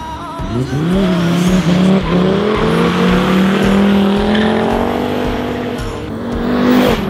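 Mercedes OM605 five-cylinder diesel with a Holset HX40 turbo running hard at high revs, its note climbing slowly as the car accelerates, with tyres squealing as the car slides.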